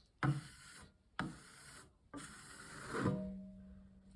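Metal taping knife scraping over a partly set plaster of Paris and joint-compound coat on a wall, shaving off ridges so the surface needs no sanding. Three strokes: two short ones, then a longer, louder one about two seconds in, with a faint low tone at its end.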